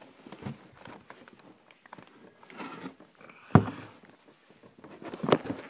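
A person falling backwards into a box while holding the recording phone: scuffling and phone-handling noise, a loud thump about halfway through, then a cluster of knocks near the end.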